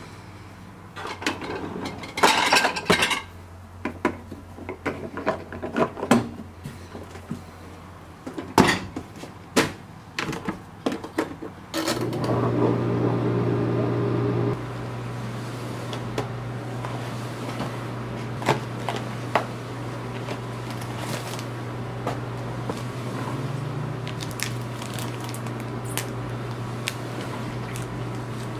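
Plastic containers and dishes clattering and clicking as they are loaded into a dishwasher rack; about halfway through the dishwasher is started and a steady low hum sets in, louder for the first couple of seconds and then even.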